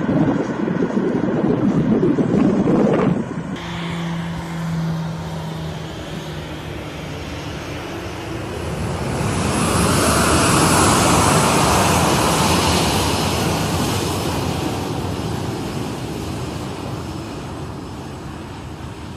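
Boeing 747's four jet engines at takeoff thrust as it lifts off, loud, cutting off abruptly about three and a half seconds in. Then more distant jet engine noise swells to a peak about ten to thirteen seconds in and slowly fades.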